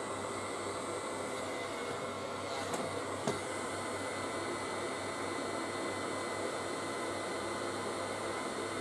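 Heat gun blowing steadily, with a low hum, as it heats the heat-shrink over freshly spliced wire joints. A couple of small clicks come about three seconds in.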